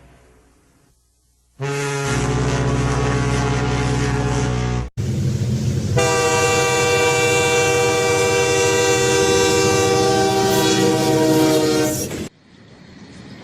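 Two separate train horn blasts, each cut off suddenly: a low horn starting about a second and a half in and lasting about three seconds, then a brighter horn with several notes sounding together, held for about seven seconds.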